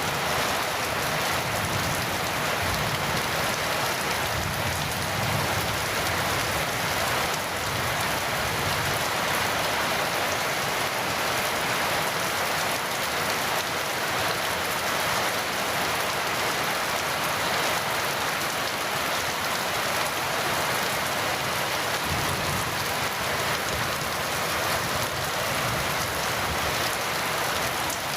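Heavy rain falling steadily: a dense, even hiss of many drops that neither builds nor fades.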